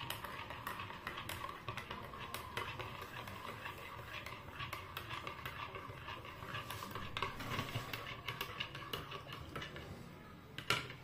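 A spoon stirring in a ceramic mug, with many light clinks against its side.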